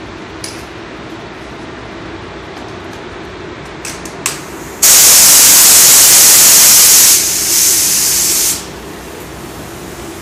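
Compressed-air paint spray gun triggered for a test spray. About halfway through, a loud, steady hiss starts, holds for about two and a half seconds, drops to a quieter hiss for over a second, then cuts off.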